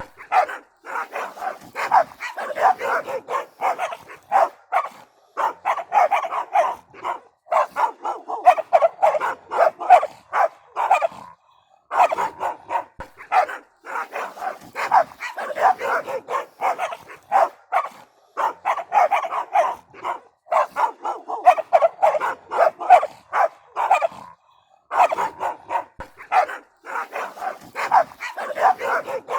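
Several dogs barking agitatedly in rapid, dense volleys of short barks, with two brief pauses, about a third and about four-fifths of the way through.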